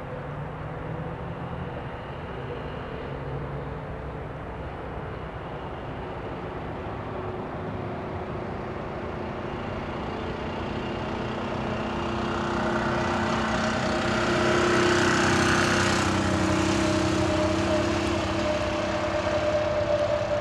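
A 1955 BMW Isetta's single-cylinder four-stroke engine running as the little car drives toward and past, growing steadily louder to its loudest about three-quarters of the way through, then easing slightly as it moves away.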